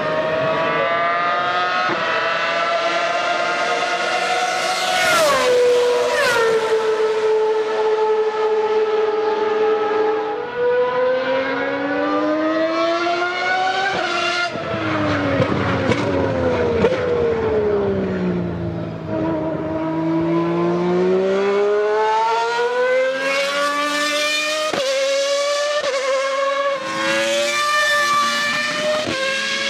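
Racing car engine running at high revs, its high-pitched note rising and falling continuously. It drops sharply about five seconds in, falls slowly to a low point past the middle, then climbs again.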